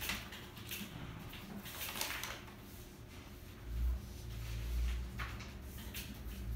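Sheets of paper rustling as documents are leafed through and handled at a desk: a few brief rustles, the clearest about two seconds in and again near five seconds. Low thumps of handling noise come around four to five seconds in.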